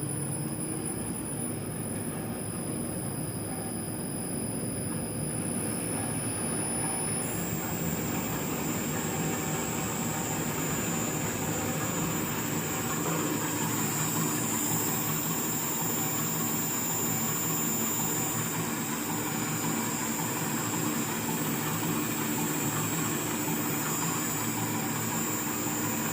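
Machine gearbox running: a steady mechanical drone with a high-pitched whine that drops a little in pitch about seven seconds in.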